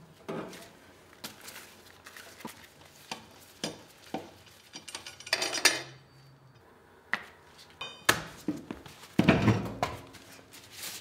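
Metallic clicks and clinks of a lug wrench socket and loosened lug nuts coming off an aluminium wheel. Near the end come a few heavier knocks and rubs as the wheel is pulled off the hub.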